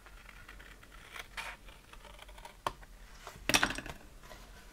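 White cardstock being handled and trimmed: scattered faint rustles and small clicks, with a louder rustle of the paper about three and a half seconds in.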